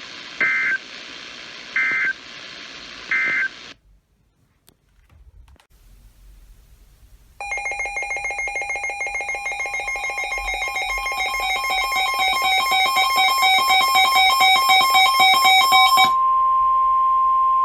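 Weather radio receiving an emergency alert. It opens with three short warbling data bursts, the EAS end-of-message code closing the previous warning. After a few seconds of near quiet, the Sangean radio's own alert alarm starts: a rapid pulsing buzzy beep that grows steadily louder, with the steady 1050 Hz NOAA warning tone underneath. The beeping stops about 16 seconds in, leaving the 1050 Hz tone alone, which signals a new warning coming.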